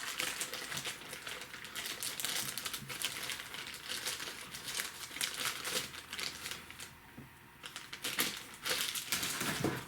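Plastic toy packaging crinkling and rustling in a dense run of irregular crackles as an action figure is worked free of it by hand. It eases off for a moment near the end.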